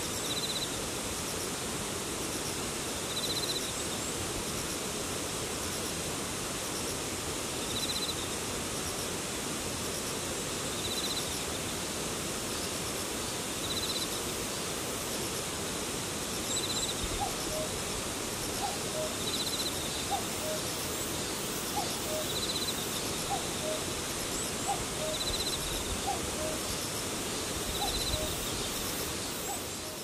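Common cuckoo calling its two-note, falling cuck-oo over and over from about halfway through, roughly once a second. Under it, grass insects keep up a steady hiss, with a pulsing buzzy insect call repeating every two to three seconds.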